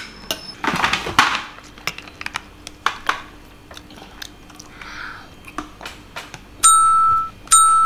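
Light clicks and scrapes of a spoon in a plastic cup of grass jelly, with a brief splash of water poured from a plastic pitcher about a second in. Near the end come two loud, steady electronic beeps, each about half a second long.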